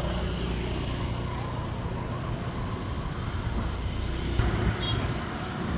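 Road traffic: the steady low hum of a nearby motor vehicle's engine running, over general street noise, with a brief change in the engine sound about four seconds in.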